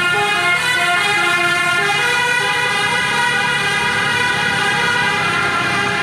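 A bus's telolet horn, a multi-tone air horn, plays a tune of stepping notes, loud and continuous.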